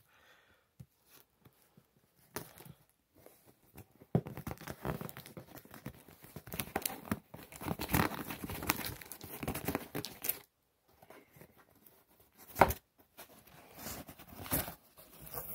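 Packaging on a book box being torn and crinkled open by hand: a few light clicks, then several seconds of continuous tearing and crackling, a sharp snap after a pause, and more crinkling near the end.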